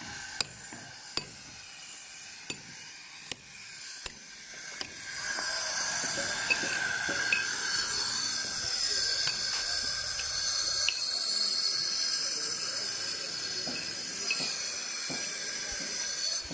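A club hammer striking a steel chisel on a concrete floor slab, about five sharp blows a little under a second apart. A steady high hiss takes over about five seconds in and runs on to the end.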